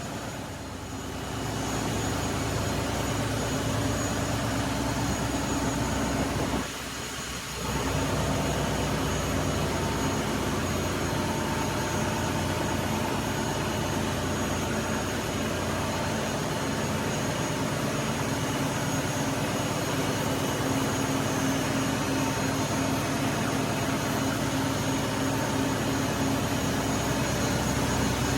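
Steady drone of marine diesel generator engines running, a constant hum with a few steady tones over a noisy wash. The sound drops away briefly about a quarter of the way in, then carries on unchanged.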